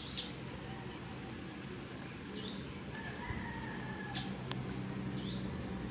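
A rooster crowing faintly, one drawn-out crow around the middle, with short falling chirps of small birds scattered through.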